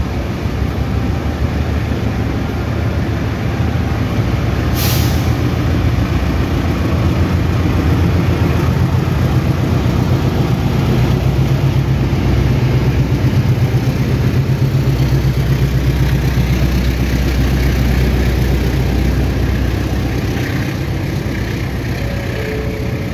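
Argo Bromo Anggrek long-distance passenger train departing and passing: the locomotive's low engine rumble and the steady clatter of coach wheels on the rails, swelling toward the middle and easing near the end. A short sharp hiss about five seconds in.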